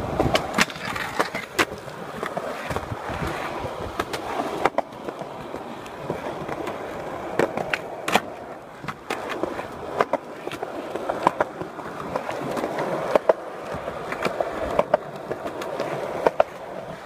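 Skateboard wheels rolling over concrete, with repeated sharp clacks as the tail pops and the board lands or slaps the ground during tricks.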